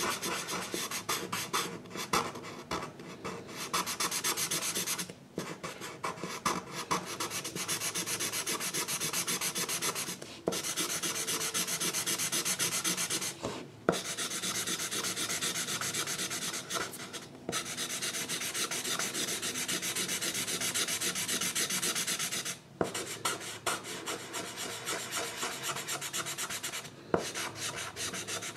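A drawing tool scratching over paper in quick, repeated colouring strokes, with short breaks every few seconds.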